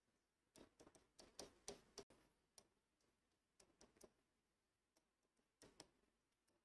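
Faint, irregular clicks and ticks of a pen tapping and stroking across a writing board as words are hand-written. A quick run of them comes in the first four seconds, then a pair near the end.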